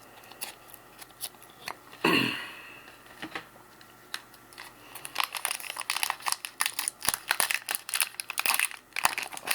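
Trading-card pack wrapper being torn open and crinkled by hand. There are scattered light ticks at first, a brief swish about two seconds in, and dense crinkling from about five seconds on.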